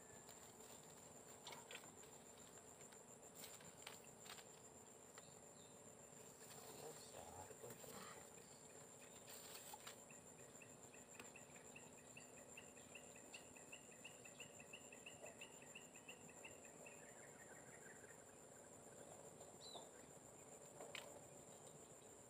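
Near silence, with faint insects trilling in a steady high drone. From about halfway through, a faint run of rapid chirps, about three a second, lasts several seconds, and a few light clicks and rustles come in between.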